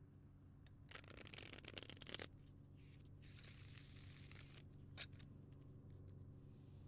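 A tarot deck being shuffled. It is riffled with a rapid crackling flutter about a second in, then bridged back together with a softer rushing flutter around three seconds in. A single light tap of the cards follows about five seconds in.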